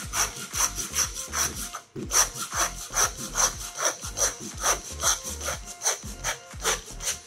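Butcher's hand bone saw sawing back and forth through beef rib bones to take the bottom plate bone off a rib of beef. It makes steady strokes, about two to three a second, with a brief pause about two seconds in.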